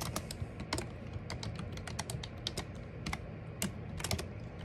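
Typing on a computer keyboard: irregular keystrokes, some in quick runs, over a steady low hum.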